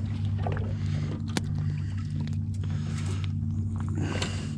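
A boat's outboard motor idling with a steady low hum, with a few light clicks and knocks over it.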